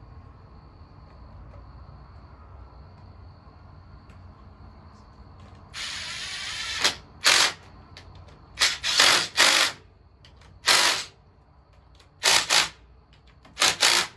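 Cordless power driver run in short trigger pulls at the bottom of a motorcycle fork: one run of about a second some six seconds in, then half a dozen brief bursts.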